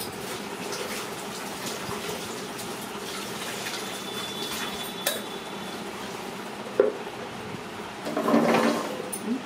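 Wet mixture being scraped and sloshed by hand in a metal mixer bowl, over a steady background hum. A sharp metal knock comes about 7 seconds in, and a louder burst of scraping and clatter near the end.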